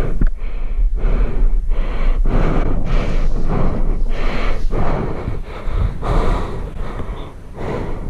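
A person breathing hard close to the microphone in quick, even breaths, about three every two seconds, over a low wind rumble on the microphone.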